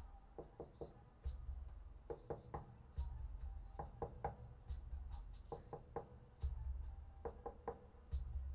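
Quiet background music with a sparse, repeating beat: groups of three short knocking hits about every second and a half over a low bass.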